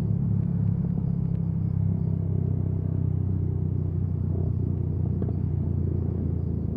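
Motorcycle engine running at a steady pace while riding, heard as an even, low drone.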